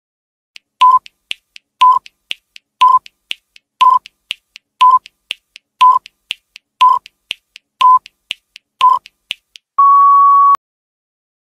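Countdown timer sound effect: a short electronic beep once a second, nine in all, with lighter ticks between them. A longer steady beep follows about ten seconds in as the count reaches zero.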